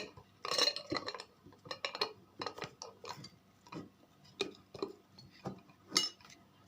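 Glass and kitchenware clinking and knocking as they are handled and set down on a table. There is a sharp clink at the start, a run of light knocks and clinks after it, and another sharp clink near the end.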